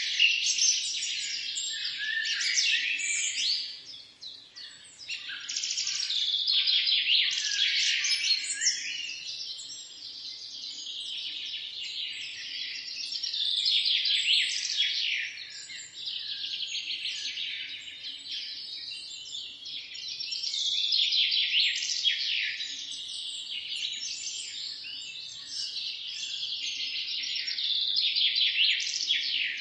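Morning bird chorus: many small birds chirping and trilling at once in a dense, overlapping stream that swells and eases every few seconds.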